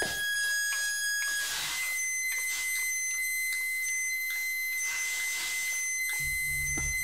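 Harsh electronic noise music: several steady high-pitched tones held over repeated sweeps of hiss. A low buzzing drone comes in about six seconds in.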